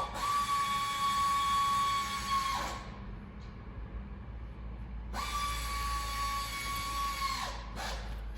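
A high-pitched electric motor whine, twice, each time about two and a half seconds long, holding a steady pitch and stopping abruptly, with short clicks around each run.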